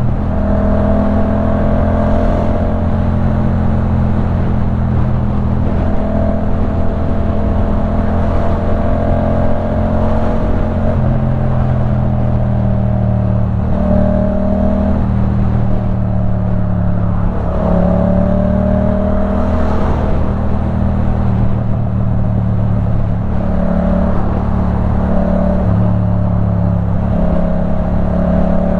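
2015 Yamaha MT-07's parallel-twin engine running under way through a LeoVince One Evo full-system exhaust. Its pitch rises and falls several times with throttle and gear changes.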